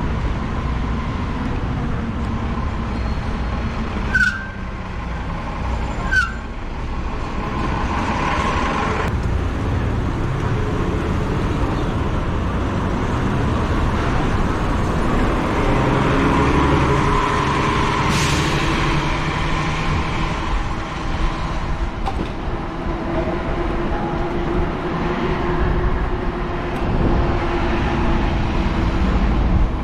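Road traffic passing, heard from a moving e-bike, over a steady low rumble. There are two sharp clicks about four and six seconds in, and the traffic grows louder around the middle.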